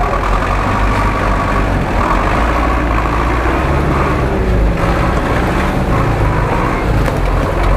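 GAZ-66-based off-road truck's engine running under load as the truck crawls through deep mud, with a steady high whine over the engine that breaks off briefly about halfway through.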